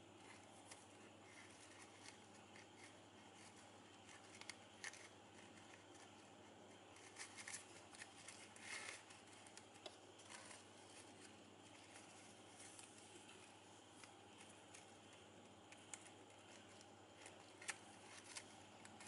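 Faint rustling and crinkling of ribbon as it is threaded through loops and pulled, in scattered short crinkles with a cluster about halfway through, over quiet room tone.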